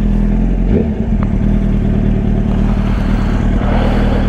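Motorcycle engine running at a steady speed.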